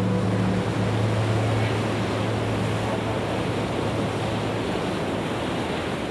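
Steady rush of wind and water noise, with a low hum that stops a little before the end. The whole sound slowly fades away.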